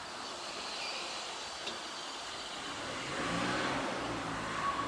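Steady outdoor background noise. From about halfway through, a vehicle engine's low hum comes in and grows a little louder.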